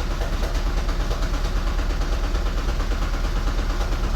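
A 2010 Toyota Prius's 1.8-litre four-cylinder petrol engine running rough with a rapid metallic rattle, a 'clac' as if its metal parts were damaged. It is the sign of a multiple-cylinder misfire (code P0300), which the mechanic puts down to clogged EGR passages in the intake manifold.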